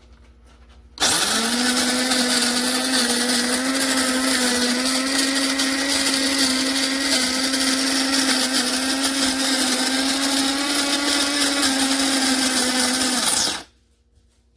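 Cuisinart DBM-8P1 electric burr coffee grinder switching on about a second in and grinding for about twelve seconds with a steady motor hum, then stopping abruptly.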